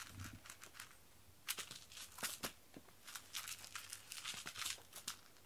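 Faint, scattered crackles and scratchy rustles, irregular and uneven, as a cat bats and noses a toy mouse on a string across foam floor mats.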